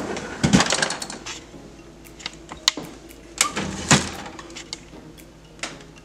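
Pull-out bottom freezer drawer and its plastic basket being handled and slid, giving a few scattered sharp clicks and knocks, the loudest about half a second in and about four seconds in.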